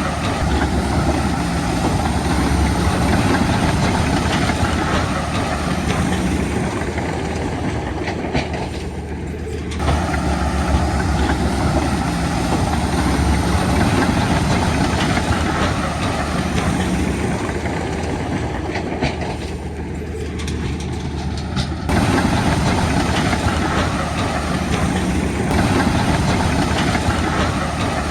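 Bulldozer's diesel engine running hard with its tracks clanking as it pushes dirt, a steady heavy drone. Twice the higher noise eases off for a couple of seconds, then comes back abruptly.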